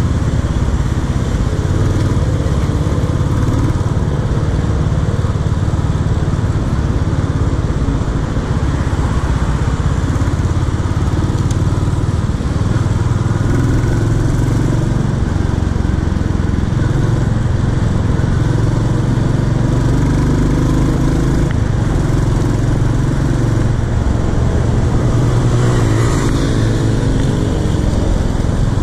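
Royal Enfield Classic 350's single-cylinder engine running steadily while the motorcycle cruises, heard from the rider's seat.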